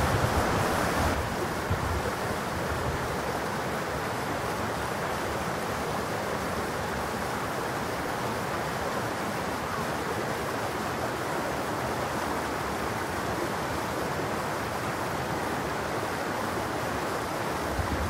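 Shallow, clear mountain stream babbling over gravel and around boulders, an even, unbroken rush of water, a little louder for the first second or so.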